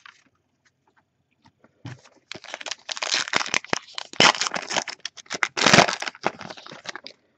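A foil-wrapped 2013-14 Panini Elite basketball card pack being torn open and crinkled by hand: a dense run of crackling starting about two seconds in and lasting about five seconds, loudest near the middle and again toward the end.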